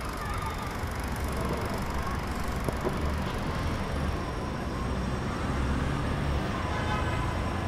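Steady low ambient rumble, like traffic noise, with a couple of faint clicks about three seconds in.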